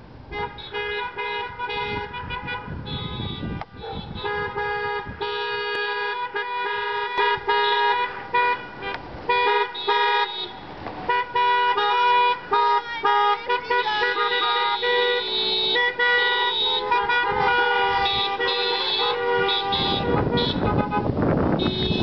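Car horns honking again and again, several at once and overlapping, from a line of cars driving past. Near the end a vehicle's engine and tyres pass close by.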